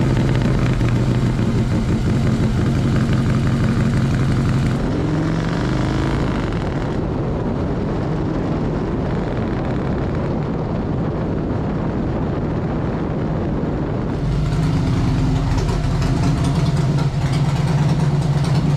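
Harley-Davidson Twin Cam 107 big-bore V-twin with Fueling 574 cams and true dual exhaust, running loud. It idles at first, rises in pitch as the bike pulls away a few seconds in, runs along the road, then settles back to a steady idle near the end.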